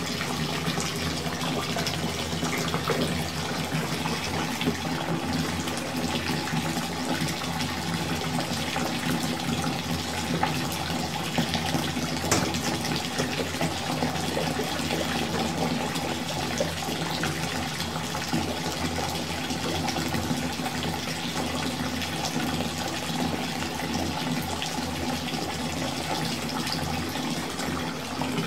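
Water running steadily from a tap into a filling bathtub, a constant gushing with a few faint splashes.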